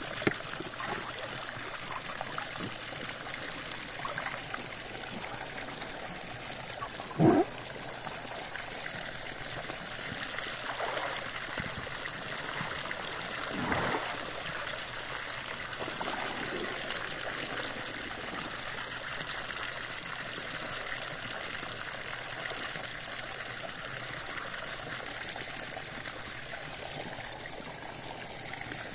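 A jet of water pours steadily into a backyard pool, with a light splashing of the water. A short sharp noise about seven seconds in is the loudest sound, and there is a smaller splash near fourteen seconds.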